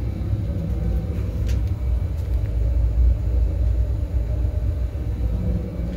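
Oil-fired boiler running, its burner firing with a steady low rumble.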